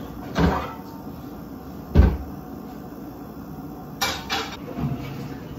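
Lower kitchen cabinet door knocked open and shut, the loudest thump about two seconds in, then a few sharp clacks as a frying pan is set on the stovetop near the end.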